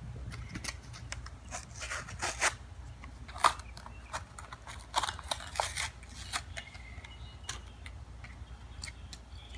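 Hot Wheels toy car package being pried and torn open by hand: irregular crackles and clicks of the plastic blister and card backing, busiest in the first few seconds and thinning out toward the end.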